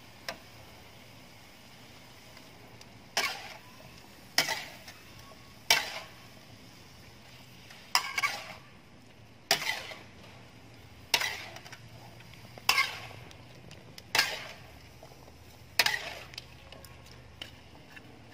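A metal ladle scraping and knocking against a steel wok as vegetables are stir-fried. There are nine strokes, about one every second and a half, starting about three seconds in, over a faint steady hiss.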